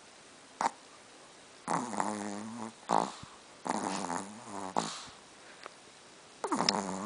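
A sleeping dog snoring: three drawn-out snores about two seconds apart, each lasting about a second, with a short sharp snort just under a second in and another between the first two snores.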